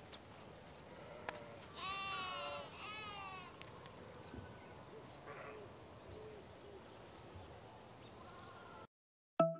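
A sheep bleating twice in quick succession, each bleat a wavering call about half a second long, with a few fainter calls afterwards over a faint hillside background.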